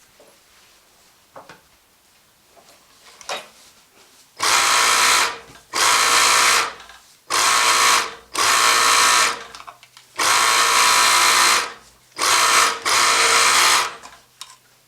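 Juki DDL-8700 industrial lockstitch sewing machine running in seven short bursts, each under a second to about a second and a half, as the pedal is pressed and released; a few faint clicks come before it starts, about four seconds in.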